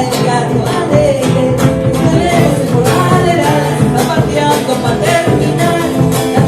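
A gato, an Argentine folk song, sung by a voice over guitar accompaniment.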